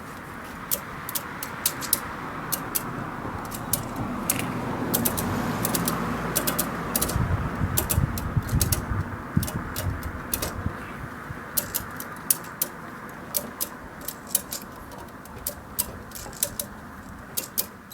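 Ratchet tie-down strap being cranked in repeated strokes, its pawl clicking over the teeth as it pulls an electric dirt bike's front fork down into compression. A steady rushing noise runs underneath, swelling in the middle.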